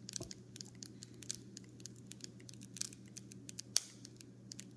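Self-inflating Wack-a-Pack foil balloon packs crackling and ticking irregularly as they fill with gas, with one sharper snap a little before four seconds in.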